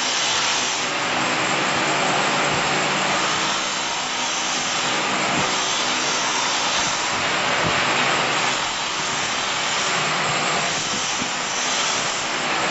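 Automatic wall rendering machine running, a steady mechanical whir with a hiss as it plasters cement mortar onto the wall.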